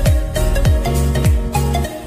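Background music with a steady beat. Deep bass drum hits slide down in pitch about every half second.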